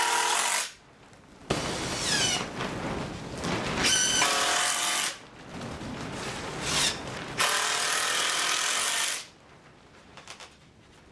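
Handheld power drill working into the timber of a wooden gantry crane, run in three or four bursts of one to four seconds each with short pauses between, its motor pitch shifting during the longer runs.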